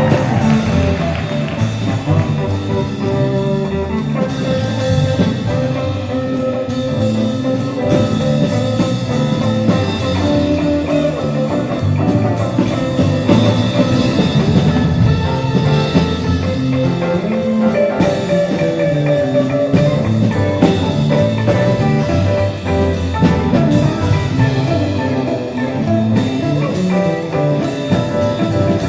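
Live jazz ensemble playing: drum kit keeping time under a moving bass line, with guitar and held horn notes on top.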